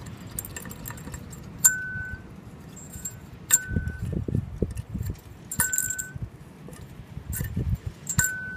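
Four sharp metallic clinks at uneven intervals, each leaving a brief ringing note at the same pitch, with dull knocks between them.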